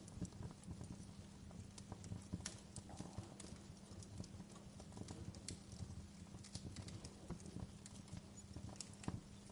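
Fire burning in a fireplace, crackling with many small irregular pops and snaps over a low, steady rumble.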